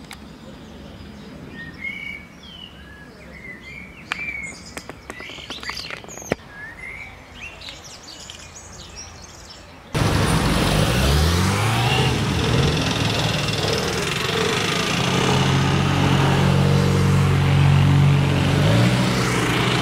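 Small birds chirping, with a few sharp clicks. About halfway through it cuts abruptly to louder street traffic noise, with a vehicle engine running, its pitch rising and then holding steady.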